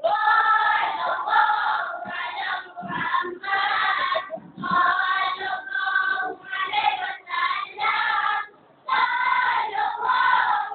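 A group of boys chanting marhaban, the Malay devotional praise chant, together in unison. It starts abruptly and goes in phrases with short breaks between them, with one longer pause near the end.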